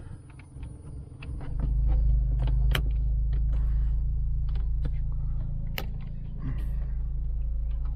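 Aftermarket plastic dash trim bezel being pushed and pressed into the dashboard, its new clips stiff and hard to seat, giving scattered clicks and knocks with two sharp snaps about three seconds apart. A steady deep rumble runs underneath from about a second and a half in.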